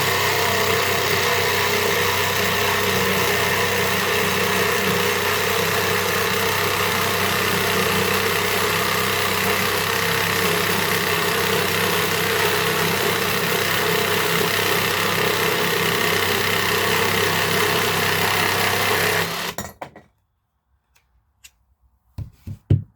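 Dewinner 20 V cordless jigsaw sawing through wood with a standard wood blade, pendulum orbital action set to 0 for a straight, clean cut. The saw runs steadily, stops suddenly about 19 seconds in, and a few light knocks follow near the end.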